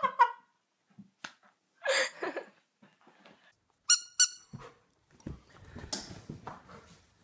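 Two short, high-pitched squeaks about a quarter second apart, then about two seconds of rustling and bumping as a husky scrambles off sofa cushions.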